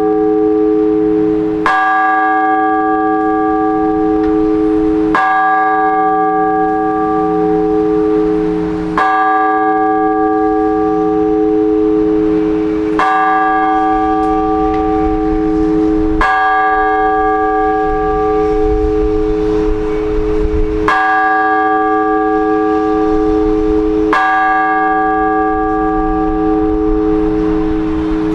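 A single Orthodox church bell tolled in slow, measured strokes about every four seconds, each stroke ringing on into the next. This is the blagovest, the even single-bell toll that calls to service.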